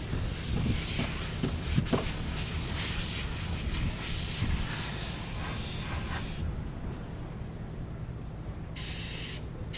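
Wind on the microphone: a steady hiss with a low rumble beneath it, the hiss dropping away for about two seconds near the end.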